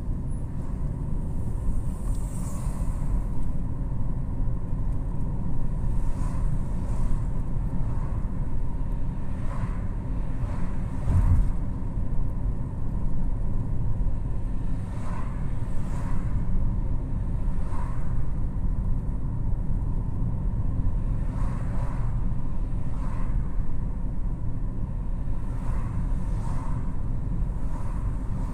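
Steady low road and engine rumble of a moving car heard from inside the cabin, with faint light knocks every second or two.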